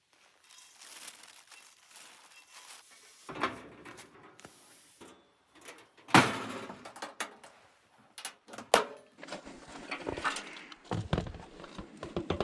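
Packing up a Coleman two-burner propane camp stove: rustling and metal knocks, a sharp clack about six seconds in as the stove's lid is shut, then more knocks and thumps as it is handled and stowed.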